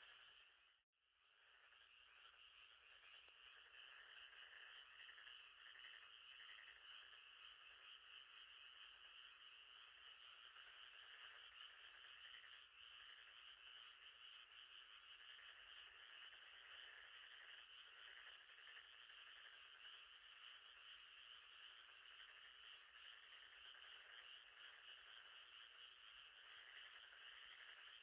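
Faint, continuous night chorus of frogs, a steady trilling din that drops out to silence for a moment about a second in and then resumes.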